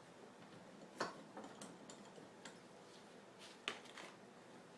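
Light clicks and taps of small engine parts being handled and fitted: two sharp clicks, about a second in and near the end, with fainter ticks between.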